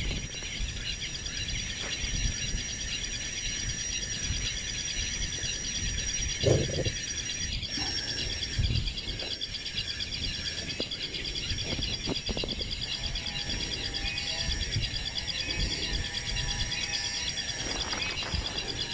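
Steady outdoor insect chorus, a dense high buzzing with a thin continuous tone and a fast pulsing above it. A few low knocks, the loudest about six and a half seconds in.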